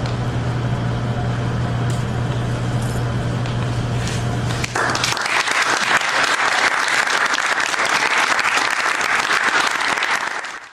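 A steady low hum for about the first five seconds, then an audience applauding, starting abruptly and cutting off suddenly near the end.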